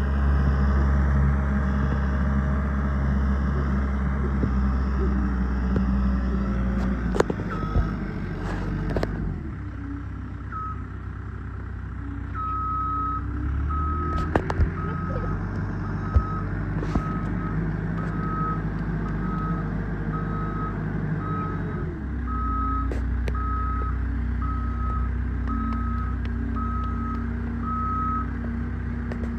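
Caterpillar 262B skid steer's engine running, its revs dropping about nine seconds in and shifting again later, with a few sharp knocks. From about ten seconds in its reversing alarm beeps steadily, about one beep every second and a half, as the machine backs up.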